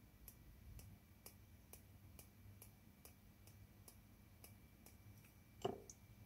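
Near silence with faint, even ticking about twice a second. Near the end there is a single louder tap as a paintbrush is brought to the watercolour pan set.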